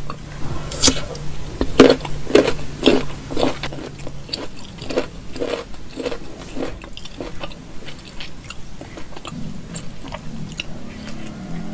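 A person biting and chewing crunchy raw rujak fruit such as unripe mango and jicama, in a run of loud crunches about two a second that thin out in the second half.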